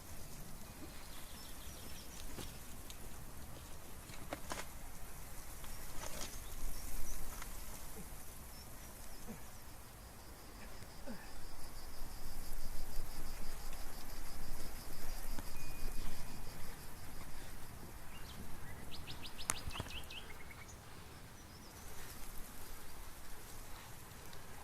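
Outdoor ambience on a hiking trail: scattered footsteps and rustling over a low, uneven rumble that swells in the middle. A high, evenly pulsed trill runs for several seconds around the middle, and a bird gives a quick run of chirps near the end.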